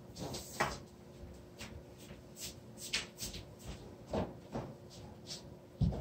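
Scattered light clicks, knocks and rustles of someone handling things out of view, over a faint steady hum, with a few duller thuds, the loudest near the end.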